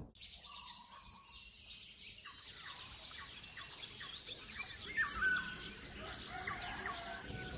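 Outdoor ambience of insects and birds: a steady high-pitched insect drone, with birds chirping from about two seconds in.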